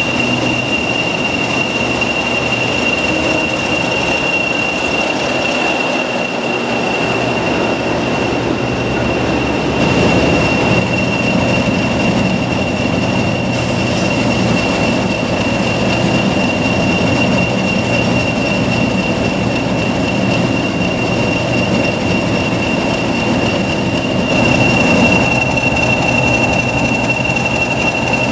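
English Electric Class 40 diesel locomotive running, its engine rumbling under a steady, piercing turbocharger whistle held at one pitch, the 'whistler' sound the class is known for. The engine note swells about ten seconds in and again near the end.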